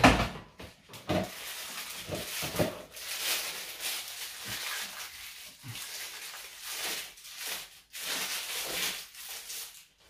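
Plastic packaging rustling as a small knife is unwrapped and handled over a cardboard box, with a sharp knock at the very start and scattered small clicks.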